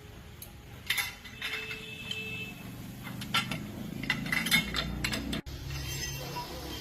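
Metal objects clinking and knocking together, several sharp clinks with brief ringing, spread through the first five seconds.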